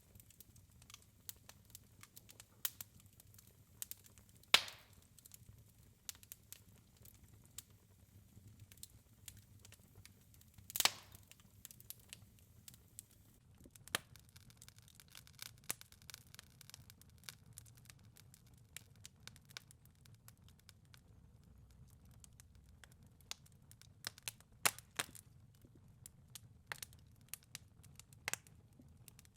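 Wood fire crackling in a fireplace: scattered small crackles and snaps, with two louder pops, one about four and a half seconds in and another about eleven seconds in.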